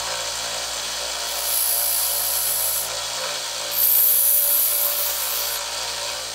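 Belt-and-disc combination sander running, its narrow belt grinding the steel blade of a bowie knife. The grinding hiss grows louder twice, about a second and a half in and again around four seconds in, as the blade is pressed to the belt.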